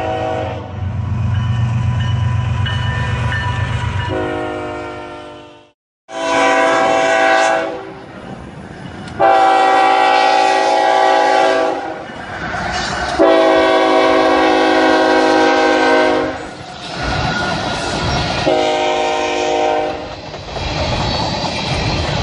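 CSX diesel freight locomotive's multi-note horn sounding a long blast over low engine rumble, then after a sudden break four more blasts with short gaps between them. Near the end the wheels of the empty coal hopper cars clatter over the rail joints.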